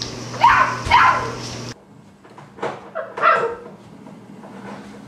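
Yellow Labrador retriever puppy yipping and barking. There are two loud, high yips about half a second apart near the start, then a few quieter ones around the middle.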